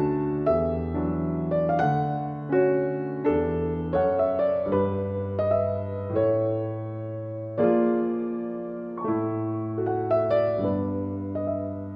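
Background music: a slow, gentle piano piece, notes and chords struck and left to fade.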